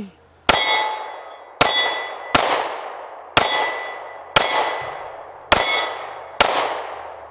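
Seven 9mm pistol shots from a Springfield Armory 911 subcompact, fired about one a second, each followed by a long fading metallic ring from the steel plate targets being hit.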